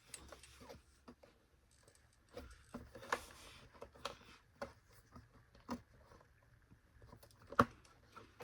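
Plastic vacuum cleaner housing parts being handled and fitted together: scattered light clicks and knocks, with one sharper click near the end.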